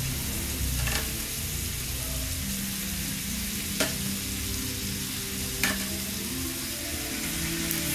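Pork pieces sizzling steadily as they fry in a hot pan of butter, garlic and onion, with three sharp clicks of a utensil against the pan or plate as more meat is added.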